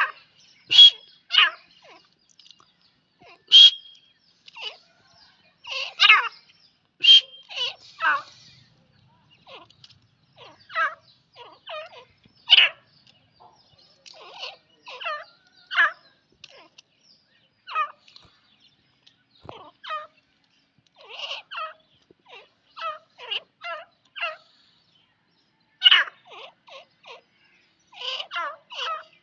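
Grey francolins calling: short, chattering call notes in irregular bursts every second or two. A few loud, sharp notes stand out in the first seven seconds.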